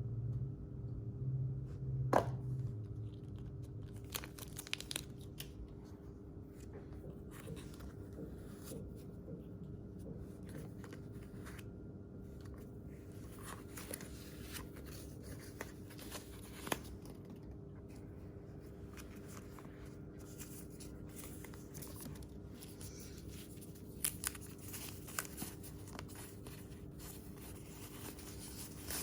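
Packaging being handled and opened: paper or plastic crinkling and tearing, with scattered sharp clicks, over a steady low hum.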